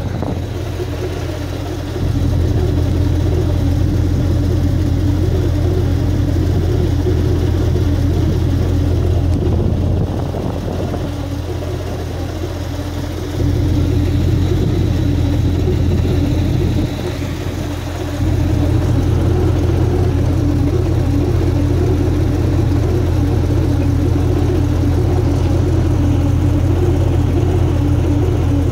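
Airboat engine and propeller running, a steady loud hum whose level steps up and down a few times: up about two seconds in, down near the middle, up again, a brief dip, then steady to the close.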